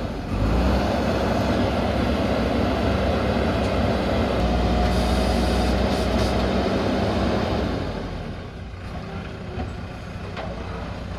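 Diesel engine of a JCB backhoe loader running steadily under load. It eases off to a quieter run about eight seconds in.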